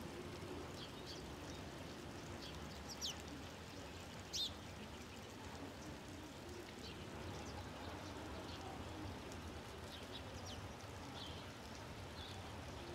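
Small birds chirping: short high calls scattered throughout, the two loudest about three and four and a half seconds in, over a faint steady background hiss.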